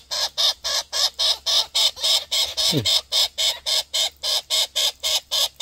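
Young Australian king parrot giving its begging call, a short loud call repeated evenly about four to five times a second without a break: a juvenile asking its parents to feed it.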